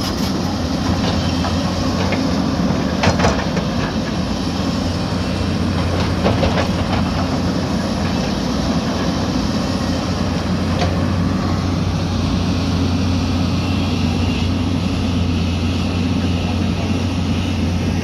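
Hyundai 220 crawler excavator's diesel engine running steadily under load as it works, with a few short knocks and clanks about three and six seconds in.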